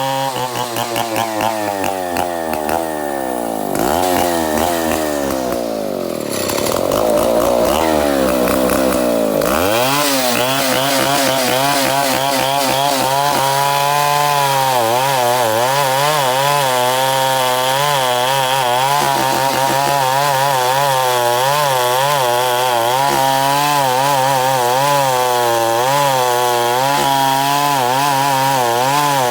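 Chainsaw engine sawing wood into boards. Its revs sink a couple of seconds in and stay low for several seconds, then climb sharply about ten seconds in and hold high, the pitch wavering as the chain works through the wood.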